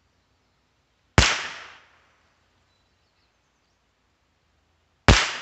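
Two .22 rimfire rifle shots about four seconds apart, heard from downrange near the target, each a sharp crack with a short echoing tail.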